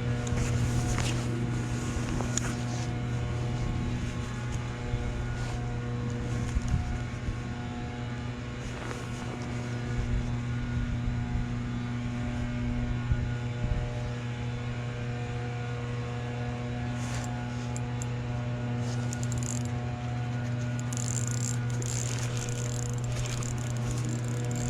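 A motor running with a steady hum that holds one pitch, over a low rumble, with a few faint clicks.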